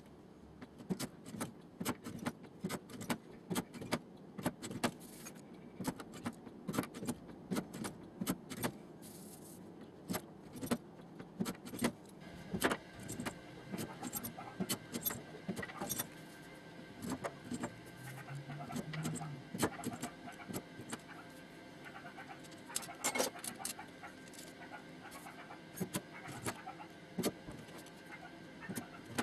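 Light hammer taps on the sheet-metal door skin of a Nissan Skyline R34 during panel beating: sharp metallic ticks, a few a second at an uneven pace.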